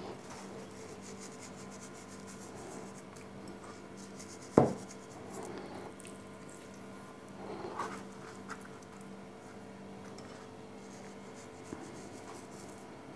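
Quiet hand-handling of raw trout fillets and dry curing salt in a plastic container: faint rubbing and rustling with a few light ticks, and one sharp knock about four and a half seconds in, over a steady low hum.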